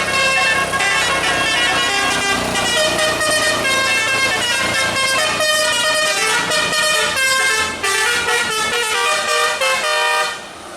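A bus's telolet musical air horn playing a fast tune of short, changing notes, stopping near the end.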